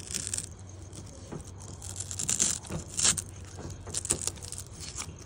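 Hook-and-loop backing of a foam polishing pad being peeled and handled, giving several short, scratchy rasps.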